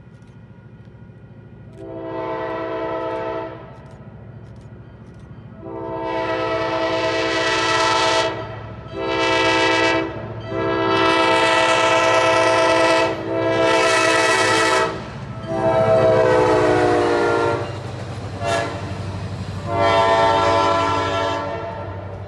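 Locomotive air horn sounding a chord in a series of about seven blasts, some short and some long, as the train approaches a grade crossing, over the low rumble of the train. The pitch of the horn sags during one blast about two-thirds of the way through.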